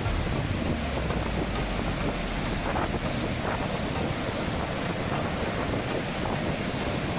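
Wind buffeting the microphone: a steady rumbling hiss with gusty flutter in the low end.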